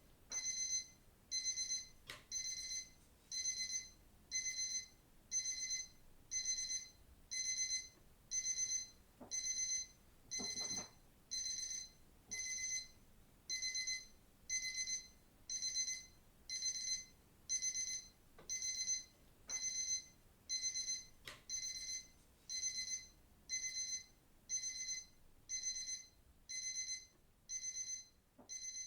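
Digital watch alarm beeping: short, high-pitched electronic beeps repeating evenly, about three every two seconds.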